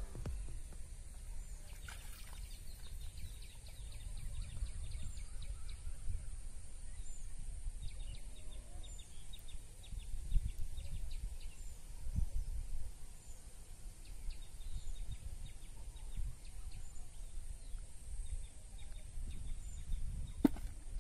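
Outdoor rural ambience: a low, uneven rumble of wind on the microphone with scattered short bird chirps, and a single sharp click near the end.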